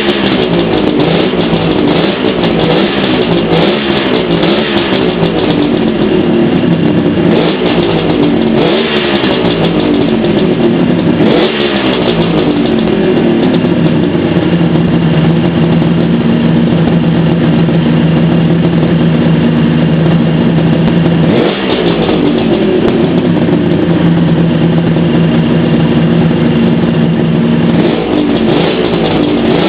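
Kawasaki H1D's air-cooled two-stroke triple engine running just after its first start following a rebuild, blipped up and down repeatedly for the first dozen seconds, then held at a steady speed for much of the rest, with a few more blips near the end.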